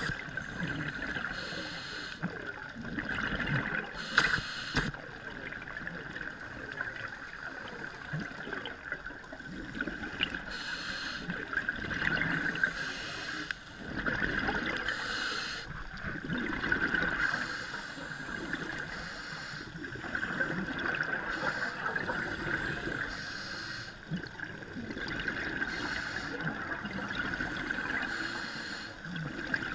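Scuba regulator breathing underwater: a hiss of air and a bubbling rush of exhaled bubbles, repeating about every two seconds.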